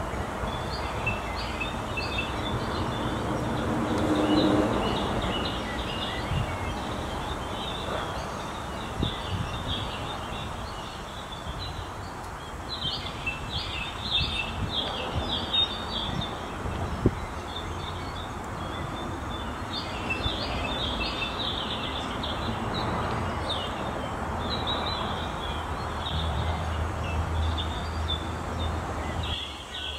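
Many small birds chirping and twittering in quick, irregular clusters, thinning for a couple of seconds near the middle, over a steady low background rumble.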